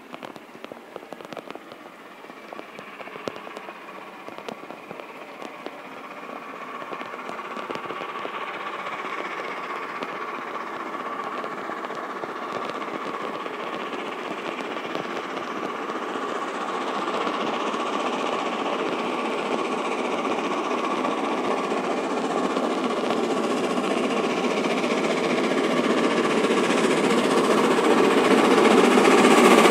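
Steam locomotive 60163 Tornado, a three-cylinder Peppercorn A1 Pacific, working hard uphill with a train. Its exhaust beat grows steadily louder as it approaches.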